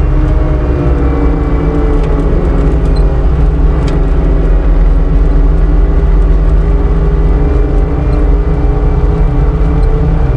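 CAT 246D skid steer's diesel engine running steadily as the machine drives along, heard from on board. A faint whine over it dips a little and rises again near the end.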